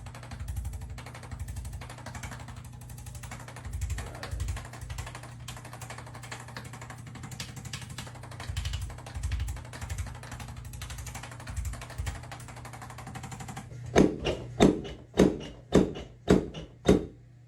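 A low steady hum with scattered soft knocks, then, near the end, seven sharp thuds in quick succession, about half a second apart.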